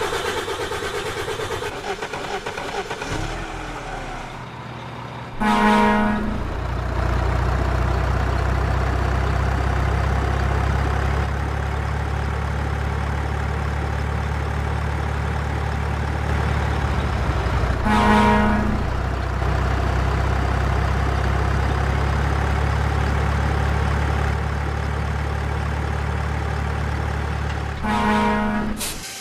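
A truck engine rumbles steadily while a truck horn honks three times, each honk about a second long and roughly ten seconds apart.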